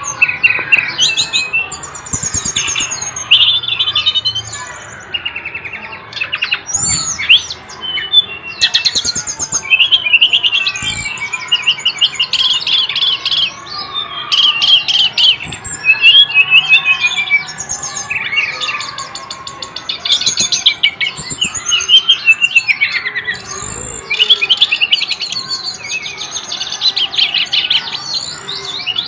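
An SRDC songbird singing non-stop in a rapid, varied stream of high chirps, trills and sweeping notes, with only brief pauses between phrases, the full vigorous song that kicau keepers call gacor.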